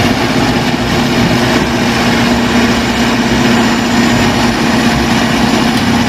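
Large diesel crawler bulldozer running steadily while pushing a load of dirt, a loud even engine drone that holds one pitch throughout.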